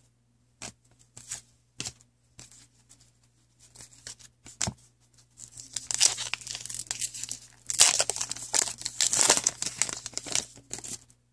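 A few light clicks of trading cards being handled, then a trading-card pack wrapper torn open and crinkled, loudest in the second half.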